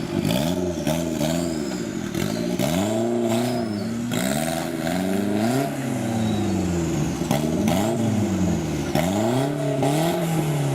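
Off-road 4x4's engine revving up and down over and over, with quick short blips at first and then longer rises and falls in pitch.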